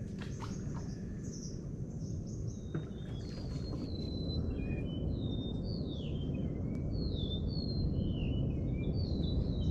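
Birds calling in mangroves: a run of short whistled chirps and sliding notes that grows busier from about three seconds in, over a steady low rumble.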